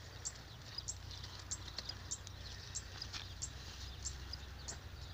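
A small bird chirping over and over, one short high chirp roughly every half second, with a steady low rumble underneath.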